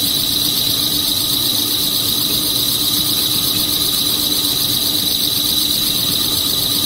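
Twin-screw snack pellet extruder line running: a loud, steady mechanical hiss with a continuous high-pitched whine and a low hum.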